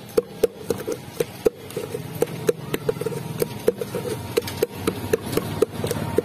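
A wooden pestle pounding spiced wood apple (bel) pulp in a metal pail, knocking against the pail about four times a second. Each knock gives a short ringing note from the metal.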